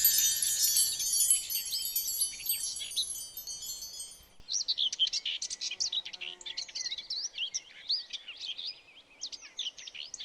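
Cartoon sound effects: a high, tinkling chime shimmer that fades out about four seconds in, then songbirds chirping.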